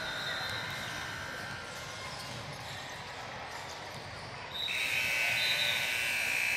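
Basketball bouncing on a gym court. About two-thirds of the way in, a loud, steady electronic buzzer sounds for about two seconds, typical of a scoreboard or shot-clock buzzer.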